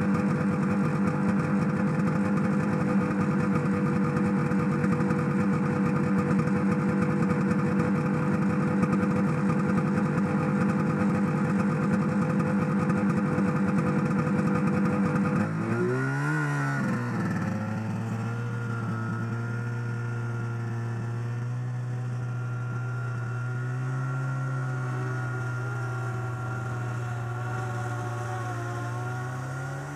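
1974 John Deere 300 snowmobile's Kohler 295 two-stroke engine idling steadily, then revving up and down about halfway through as the sled pulls away. It then settles into a lower, steady running note.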